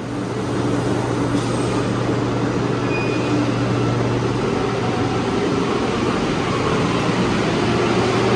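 Rubber-tyred metro train running through a station: a steady, dense rolling noise, with a low motor hum that stops about halfway through.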